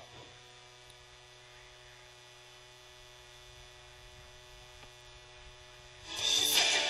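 Faint steady electrical hum made of several fixed tones, with no other sound. Loud rock music starts about six seconds in.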